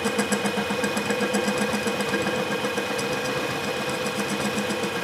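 Benchtop mini milling machine running with its end mill cutting into an aluminum block: a steady motor whine with fast, even chatter from the cutter.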